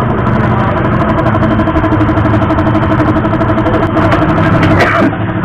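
A motorcycle engine idling steadily, with a brief higher-pitched sound near the end.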